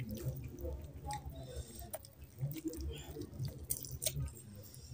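Wet squelching eating sounds: a curry-soaked whole chicken being pulled apart by hand, mixed with chewing, with a few sharp clicks.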